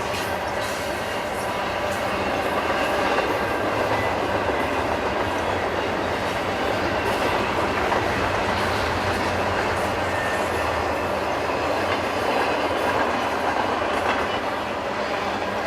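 Freight train rolling past, with a steady rumble and rattle of its cars' wheels on the rails.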